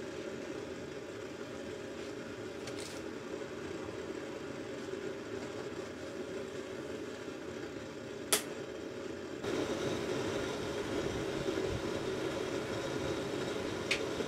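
Gas burner running steadily under a copper model-locomotive boiler in a brazing hearth. There is a sharp click about eight seconds in, and a second later the burner noise steps up louder and stays there, as the secondary burner is started for silver soldering.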